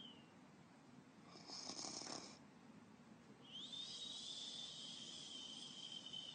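A person imitating a cartoon whistling snore: a short rasping snore breath, then a long high whistle that drifts slowly lower in pitch.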